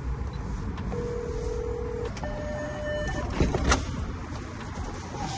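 Door-entry keypad beeping: one steady electronic tone about a second in, lasting about a second, then a second, higher tone. A couple of sharp knocks from the metal door follow as it is pushed open, over a steady low rumble.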